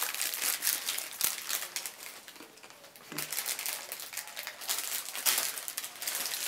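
Plastic food wrapper crinkling and crumpling as it is handled, easing off briefly midway and then starting up again.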